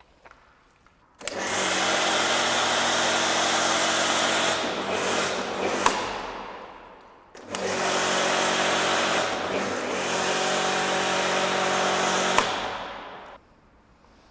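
Electric pressure washer running while spraying through a foam lance, with a steady motor-pump hum under a loud spray hiss. It runs in two bursts of about five seconds each and winds down at the end of each as the trigger is let go.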